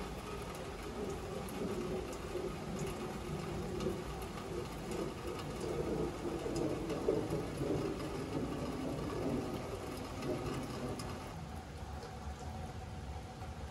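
Steady rain falling, an even hiss with scattered drop ticks, easing a little near the end.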